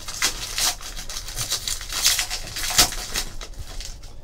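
Trading cards being handled and slid against one another in the hand, a run of quick, irregular flicks and rustles.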